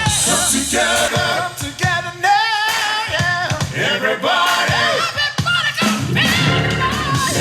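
A pop song with a lead singer and backing voices over a bass line, played back through an Amazon Echo smart speaker.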